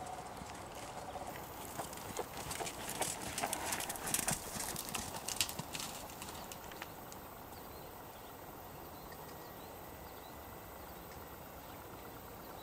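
Hoofbeats of a Belgian Warmblood gelding moving over a sand arena, growing louder as the horse passes close by about three to five seconds in, then fading away. Only a faint steady hiss remains afterwards.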